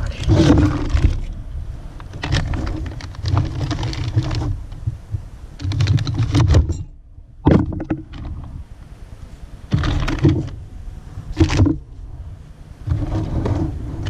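Irregular rustling and clunks as a 4L60E transmission case is handled and turned over on a plastic tarp.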